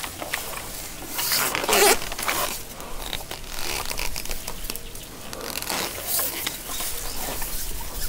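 Irregular rustling and scraping in short noisy bursts, loudest about two seconds in.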